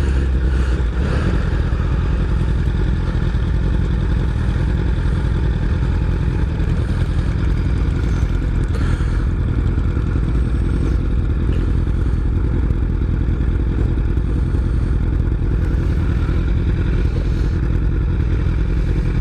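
Honda CBR1000RR sport bike's inline-four engine running steadily while being ridden.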